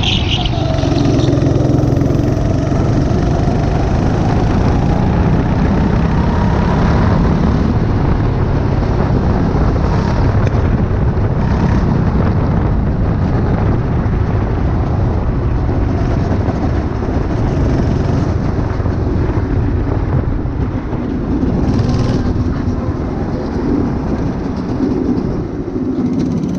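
Go-kart engine at close range on the kart itself, running hard around a circuit, its pitch falling and climbing back as the throttle comes off and on through the corners. Near the end it runs slower and a little quieter as the kart eases off.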